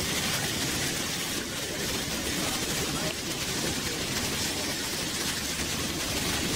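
Steady rushing noise of water and wind with a low engine drone underneath, as heard from a river boat under way.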